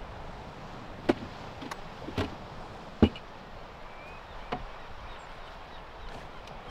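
About five sharp knocks and clunks, the loudest about three seconds in, from a man handling a rooftop tent on a Jeep Wrangler TJ and shifting his footing on the back of the Jeep, over steady outdoor background noise.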